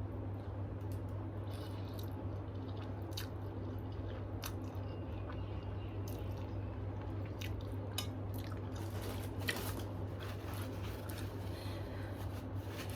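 Close-up eating sounds: chewing with scattered wet smacks and small clicks, over a steady low hum.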